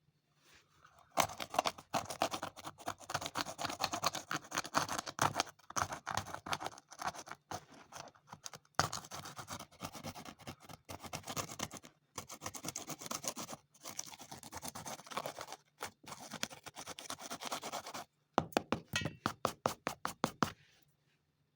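Fast, continuous hand scraping strokes worked against a worn shoe, broken by a few short pauses. Near the end they give way to a run of separate, distinct strokes.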